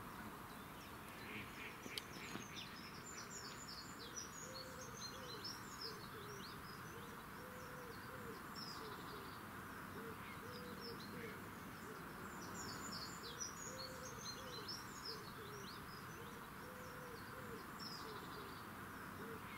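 Faint birdsong: low, repeated cooing notes in short phrases, with high thin chirping from small birds in clusters over the top.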